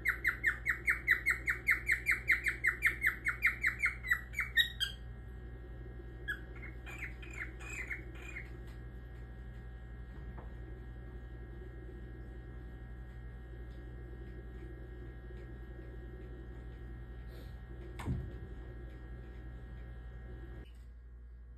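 Cockatiel calling in a fast run of repeated chirps, about five a second, for some five seconds, then a shorter run a second or so later. After that only a steady hum, with one sharp knock near the end.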